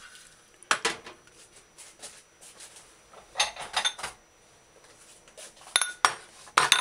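Stainless steel colander and pot knocked and set down on a stone counter, with a few separate metal knocks and clatters. Near the end, ceramic bowls clink as they are set down beside it.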